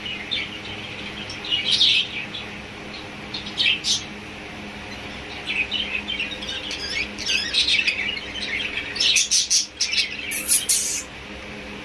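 Pet lovebirds chirping in short, high bursts throughout, the loudest and shrillest calls about nine to eleven seconds in, over a steady low hum.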